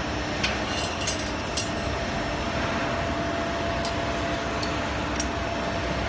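Hydraulic tube punching machine running steadily with a faint whine, with several short, sharp metallic clicks at irregular intervals.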